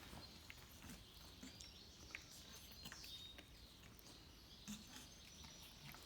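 Faint outdoor ambience with a few short, high bird chirps and scattered small clicks.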